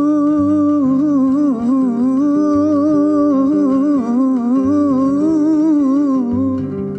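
A male nasheed singer holds one long ornamented note, winding it up and down in a melisma on the end of a sung line. Low sustained accompaniment notes change beneath it, and the note fades out shortly before the end.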